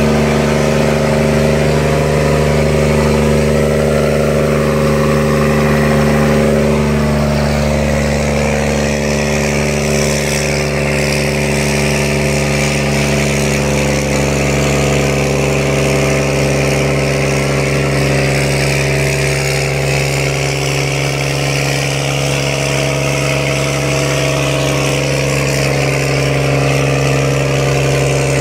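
New Holland T7060's 6.7-litre FPT six-cylinder diesel running hard and steady under load on a PTO dynamometer, a loud even drone, pulling down slightly in pitch a few seconds in. The exhaust is glowing red hot from the load.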